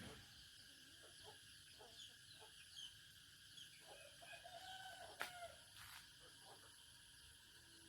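Chickens clucking softly in short repeated calls, with one longer drawn-out call about four seconds in, over faint high chirping. A single sharp click just after five seconds is the loudest sound.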